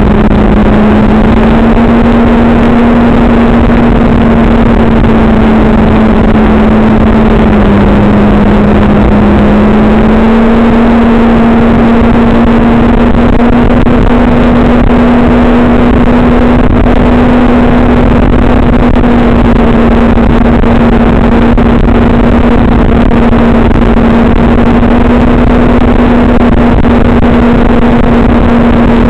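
Vehicle engine running at a steady speed under a constant rushing noise. Its note drops briefly about seven seconds in and climbs back a few seconds later.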